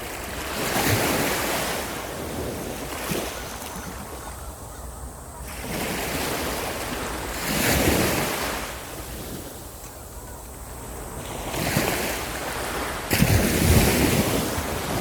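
Sea waves breaking and washing up on a beach, surging every few seconds, with the loudest break near the end.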